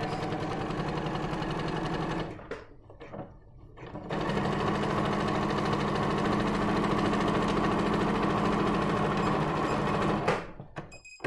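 Domestic electric sewing machine stitching a seam at a steady speed. It stops about two seconds in, pauses for nearly two seconds, then runs for about six seconds more before stopping near the end.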